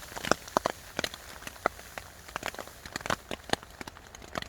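Light rain: scattered drops tapping irregularly, a few a second, over a faint hiss.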